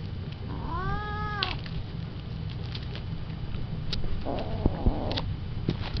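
Bengal cat meowing: one drawn-out meow about a second in that rises and then falls in pitch, then a rougher, noisier call around four seconds in. A few light clicks come between the calls.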